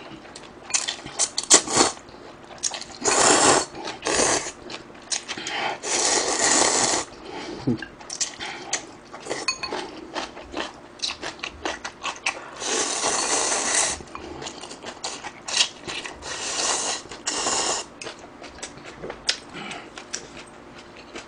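A person slurping instant ramen noodles close to a microphone: several wet slurps of about a second each, with chewing and small clicks in between.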